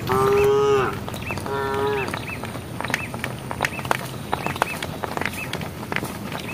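Cattle calling twice, two short high calls, the first right at the start and the second about a second and a half in. Small birds chirp repeatedly throughout.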